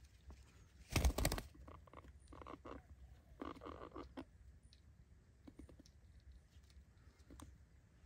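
Quick bursts of scratchy clicking and scuffling, the loudest a rapid rattle about a second in, then two shorter clusters and a few scattered ticks.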